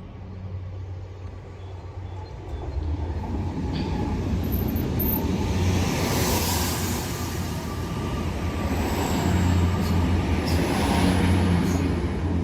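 Passenger train running into the station: a low engine drone with wheel and rail noise that grows louder, swelling twice, with faint high squeals.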